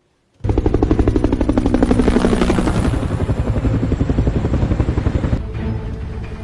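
Helicopter rotor chopping in fast, even beats. It starts suddenly about half a second in and eases slightly near the end.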